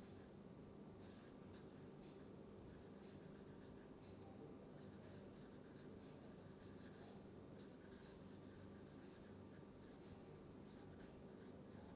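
Felt-tip marker writing on paper: faint scratching strokes in short quick runs, with brief gaps between words, over a faint steady low hum.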